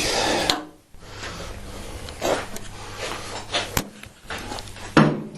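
A short rush of noise, then a few scattered light knocks and clicks, like things being handled and set down.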